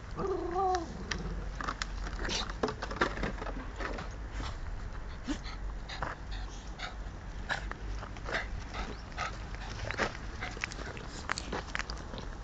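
Dogs moving about on a gravel path: a short whine, about a second long, at the start, then scattered scuffs and clicks of paws on gravel.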